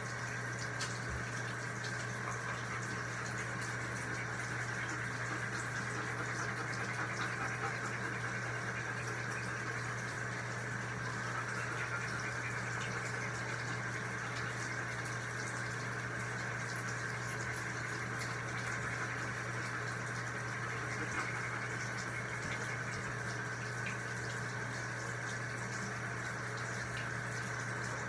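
Steady rush of water running from a bathtub faucet into the tub, unbroken throughout, with a few faint ticks.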